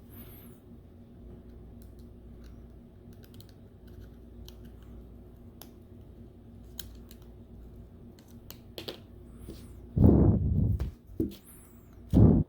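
Scattered light clicks and taps of small parts and tools being handled on an opened tablet, over a faint steady hum. Near the end come two louder, short rubbing thumps, like hands or the tablet brushing close to the microphone.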